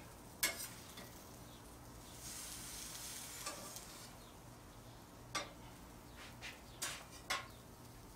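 Metal spatula clicking and scraping on metal grill grates as grilled cheese sandwiches are flipped, a few sharp clicks over a soft sizzle of bread and cheese frying on the hot grate.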